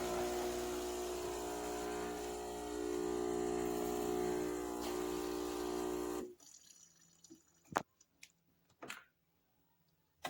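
Philips 3200 series espresso machine's pump running steadily with liquid flowing as it dispenses. It cuts off abruptly about six seconds in, followed by a few sharp clicks.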